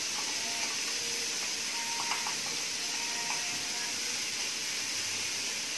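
Steady sizzling hiss from a frying pan as wet ground tomato-onion paste is poured onto frying bitter gourd peels, with a few faint light clinks.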